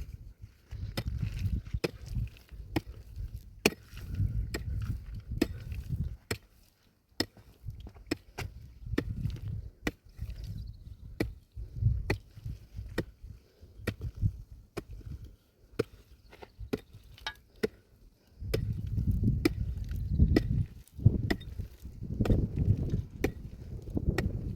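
Wood being chopped: a run of sharp, irregular knocks, one or two a second, over a low rumble that grows louder near the end.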